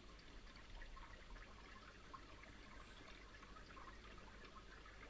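Faint, steady bubbling of an aquarium pump, a crackle of small water sounds.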